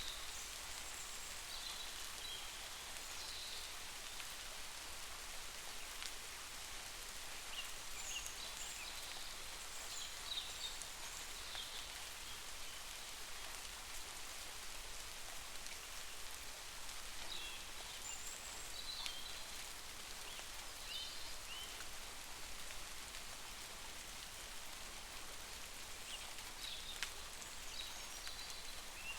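Steady rain falling, an even hiss, with scattered short high-pitched chirps coming in clusters every few seconds.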